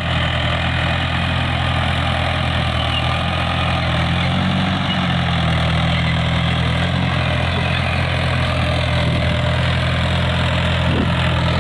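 Tractor's diesel engine running at a steady speed as it pulls a zero-till seed drill sowing wheat, with a steady mechanical noise over the low engine note.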